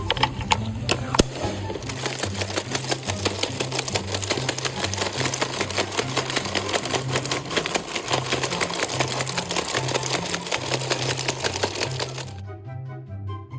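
Background music with a steady bass pattern over a fast, continuous mechanical clatter of rapid clicks, like a machine or tool running at speed, which stops a little past twelve seconds in.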